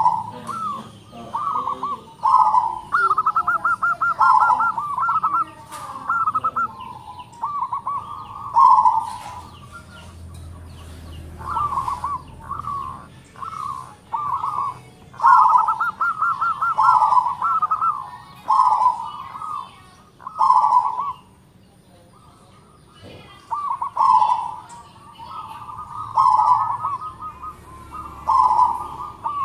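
Local zebra dove (perkutut) cooing in repeated phrases, some with fast stuttering trilled notes, with a lull of a couple of seconds about two-thirds of the way in.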